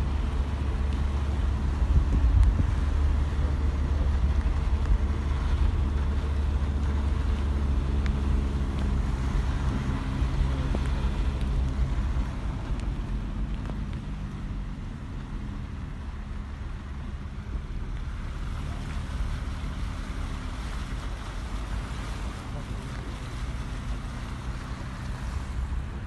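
Waterfall crashing down a cliff face, making a steady rushing rumble, with wind buffeting the microphone. It is louder in the first half and eases a little about halfway through.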